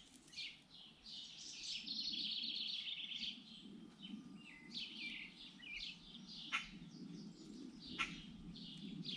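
Small songbirds chirping and calling, with one quick trill about two seconds in. Two short sharp clicks come in the second half.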